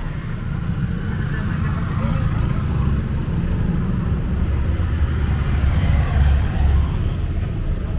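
Low rumbling background noise, swelling a little about six seconds in.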